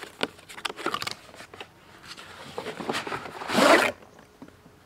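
Packaging of a socket set being opened by hand without a tool: a few small clicks and scrapes, then one loud tearing rip a little over three seconds in.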